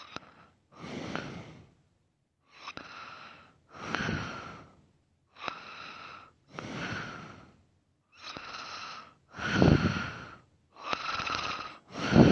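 A sleeping man breathing heavily and snoring, each breath in and out heard with a wheezy, whistling edge, one breath cycle about every 2.5 to 3 seconds. The last two breaths, near the end, are louder and deeper.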